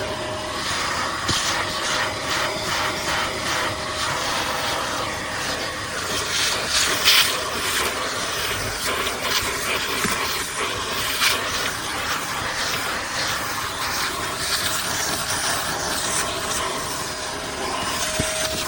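A small wet/dry shop vacuum running steadily, its motor and airflow making a continuous rushing noise, with scattered clicks and rattles, the sharpest about 7 and 11 seconds in.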